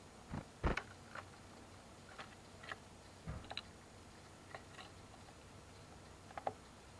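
Small birds' beaks pecking and tapping at sunflower seeds on a feeder: a dozen or so irregular sharp taps and clicks, the loudest about a second in.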